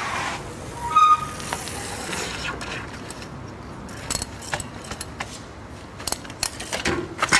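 Bicycle being ridden up to a metal street barrier and hopped onto it, over outdoor street noise: a brief squeal about a second in, then a run of sharp clicks and knocks from about four seconds in as the wheels meet the barrier.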